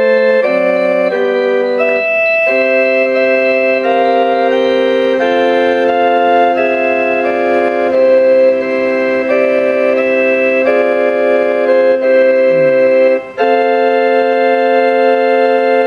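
Casio LK-S250 keyboard playing one of its built-in song bank tunes in an organ voice: sustained chords that change every second or so, with a brief break about thirteen seconds in.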